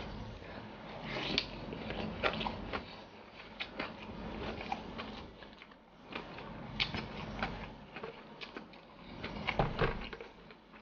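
Eating with the fingers from a plastic meal tray: rice and rendang being scooped and pressed by hand, with irregular crackles and clicks of the tray and mouth sounds of chewing.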